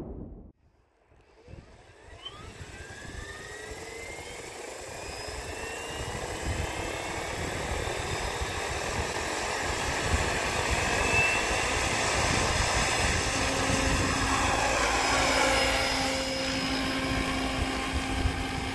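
Electric RC helicopter (PSG Dynamics Seven, X-Nova brushless motor) spooling up: the motor whine and rotor sound start about two seconds in and climb steadily in pitch and loudness, then settle into a steady note at head speed as it lifts off near the end.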